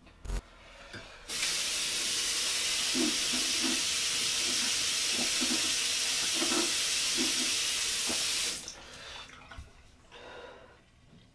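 Bathroom sink tap running steadily into the basin for about seven seconds, then turned off. There is a short knock just before the water starts.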